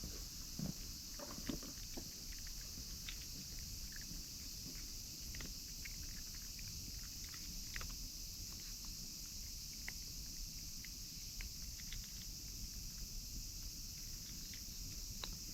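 Cats eating dry food: irregular small crunching clicks, several a second at times, over a steady high-pitched hiss and low rumble of outdoor background noise.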